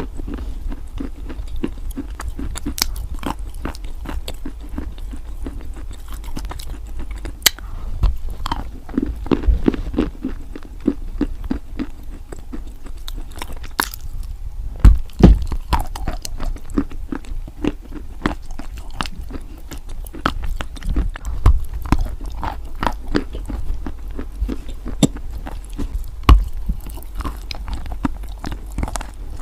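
Wet white chalk being bitten and chewed close to the microphone: dense, irregular crunching and crackling, with a few louder crunches about halfway through and again near the end.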